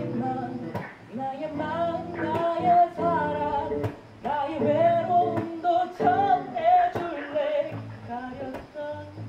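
A man singing a slow melody while accompanying himself on electric bass guitar, plucked bass notes and chords ringing under the voice.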